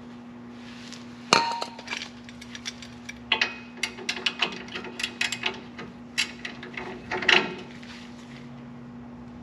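Irregular sharp metallic clinks and taps, about a dozen, from tools and metal parts on a brake caliper while a stuck slide pin is being worked loose. The loudest knocks come about a second in and again near the end.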